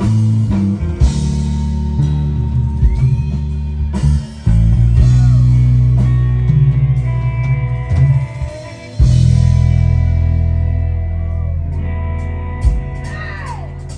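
A live funk band plays without vocals: electric bass holding long, deep notes under drum kit and electric guitar. The band gets gradually quieter over the last few seconds.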